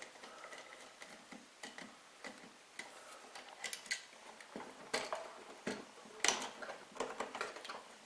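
Small clicks, taps and scrapes of a GFCI receptacle and its copper wires being handled as the wires are taken off its screw terminals. The clicks come scattered, thicker and louder in the second half.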